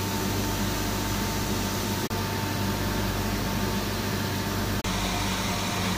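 Steady drone of drilling rig machinery: a low hum with a few steady tones over a constant hiss, cutting out for an instant twice.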